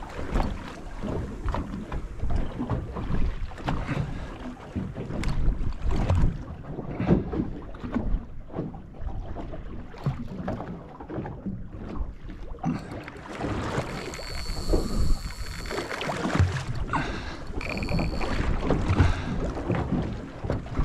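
Wind buffeting the microphone and water slapping against a small boat's hull, an uneven low rumble that rises and falls. Twice in the second half a brief high whine sounds over it.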